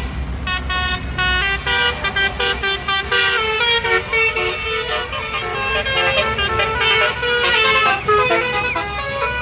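Tour bus's basuri telolet horn, a multi-note musical air horn, playing a fast tune of short stepping notes over the low rumble of the bus going past.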